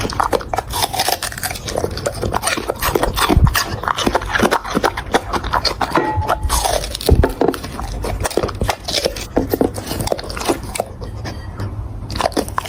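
Dog chewing and crunching melon: a dense, irregular run of bites and mouth clicks.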